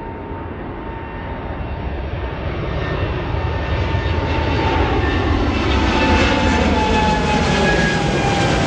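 Boeing 787 Dreamliner's twin jet engines at takeoff power as it climbs out overhead, the roar building steadily louder. A high whine in the engine noise slides slowly down in pitch in the second half as the jet passes.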